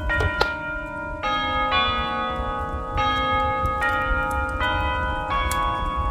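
Aeolian-Skinner virtual pipe organ playing a Christmas hymn: held, bright chords that move to a new chord every half second to a second, with scattered crackling clicks from a fire.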